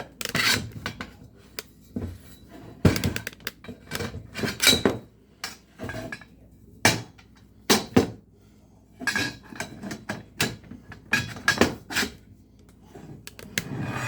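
Metal rail sections of a garage door opener clanking and clinking as they are handled and fitted together, in a series of irregular knocks, some with a short ring.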